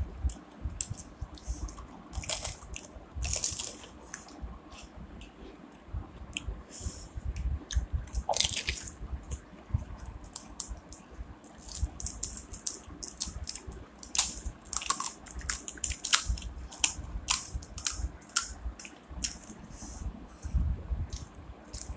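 Crisp phuchka (pani puri) shells being cracked open by hand and bitten: irregular sharp cracks and crunches with chewing.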